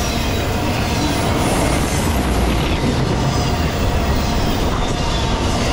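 Cars of a Norfolk Southern intermodal freight train passing close by, loaded with highway trailers: steel wheels run steadily over the rails with a continuous rolling clatter.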